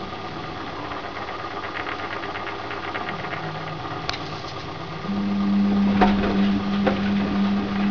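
Washing machine running with a steady motor hum. About five seconds in, the motor note steps up and gets louder. A few sharp knocks come from the load tumbling in the drum.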